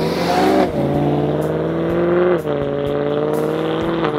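Supercharged BMW E92 M3's V8 pulling hard under acceleration, climbing in pitch, then dropping sharply about half a second in as it shifts up a gear. It pulls on steadily, with another upshift about two and a half seconds in and a brief dip near the end.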